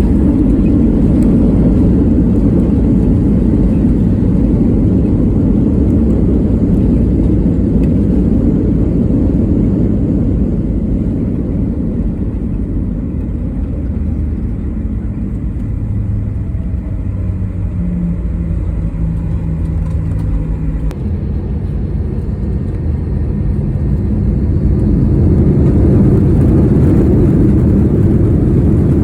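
Jet airliner engines running: a loud, steady low rumble that eases off in the middle and builds again near the end.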